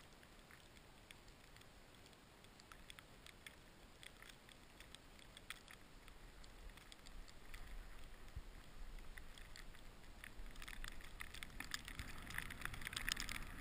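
Skis moving through deep powder snow, a faint hiss with a few light ticks that grows louder over the last few seconds.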